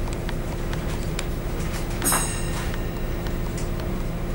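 Steady low hum and rumble of a train standing at the platform, with a constant mid-pitched tone running through it and scattered light clicks. A brief, loud, high-pitched squeal cuts in about two seconds in.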